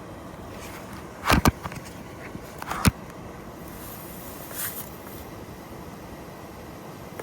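Three sharp knocks or clicks over a steady outdoor background hiss: two close together about a second and a half in, and a third about a second later.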